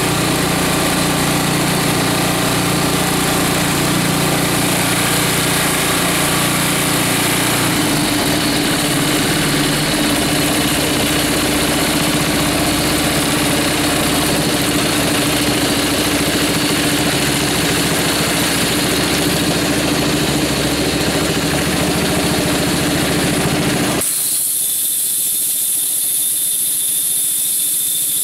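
Toro 521 snowblower engine running a homemade air compressor, pumping up the air tank. About 24 seconds in, the engine drops back and a loud hiss takes over as the tank's pressure relief valve vents air at about 140 psi.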